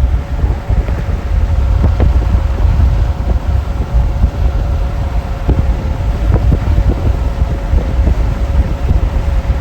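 Vehicle driving, with heavy low road rumble and wind buffeting the microphone, a steady hum above it, and scattered sharp ticks and knocks.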